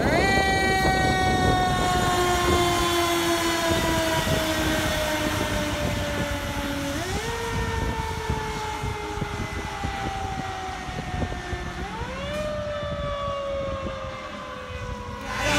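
Fire engine's Federal Q mechanical siren winding up sharply, then slowly coasting down in pitch, wound up twice more, about 7 and 12 seconds in. The siren grows fainter as the engine drives away.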